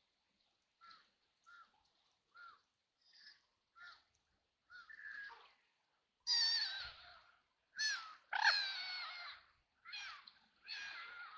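Ducks quacking: first a run of short, faint quacks, then louder, longer, rasping quacks from about six seconds in.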